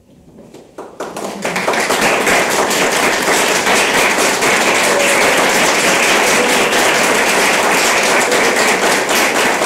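Audience applauding after the music ends, starting about a second in and quickly building to steady clapping.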